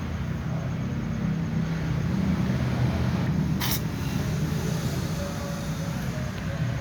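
Cat sneezing once, a short sharp hiss about three and a half seconds in, over a steady low hum.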